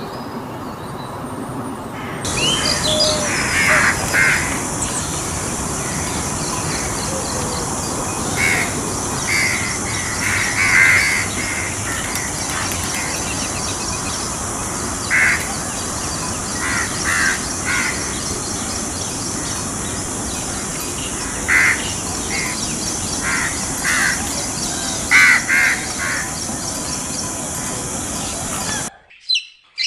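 Birds calling: short, harsh calls repeated singly and in twos and threes over a steady outdoor background hiss. The sound cuts off suddenly near the end.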